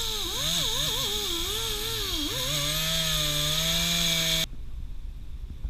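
Pneumatic tool spinning a wire wheel against a car's wheel hub, scrubbing corrosion off the hub face, with a hissing whine. Its pitch dips and rises as it is pressed on, then holds steady before it cuts off about four and a half seconds in.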